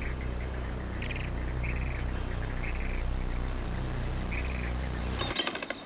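A flock of flamingos calling, with scattered short nasal honks over a steady low hum. The hum drops away shortly before the end.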